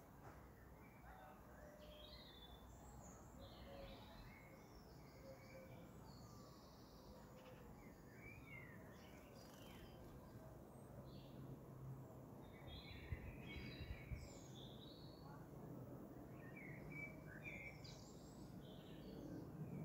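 Faint garden birdsong: scattered short chirps and calls from several small birds, over a low steady background rumble.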